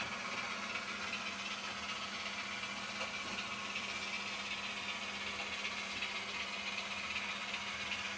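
Digital sound decoder in a Heljan Class 26 model diesel locomotive, playing a Class 26 Sulzer diesel engine sound through twin speakers. The sound runs steadily with a constant hum and a light rattle.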